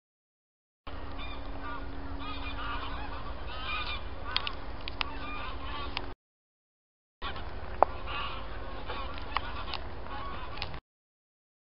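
A large flock of wild geese flying over, many birds honking at once in a continuous chorus. The sound drops out to dead silence three times where clips are cut together, and a few sharp clicks come through, the loudest about eight seconds in.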